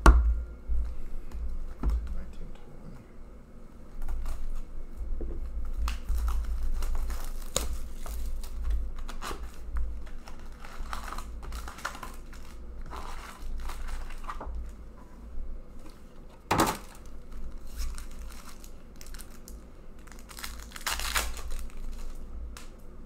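Foil hockey card pack wrappers being handled, crinkled and torn open, with irregular crackling and a few sharper rips, the loudest about two-thirds of the way through. A thump right at the start.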